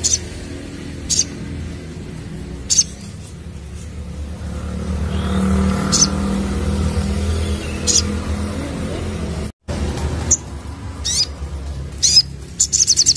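Crimson sunbird (sogon) giving short, sharp, high chirps every second or two, breaking into a fast run of high notes near the end. Under it runs a low, engine-like rumble that swells in the middle.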